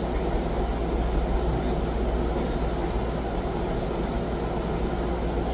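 Steady low rumbling background noise, even in level throughout, with no distinct knocks or voices standing out.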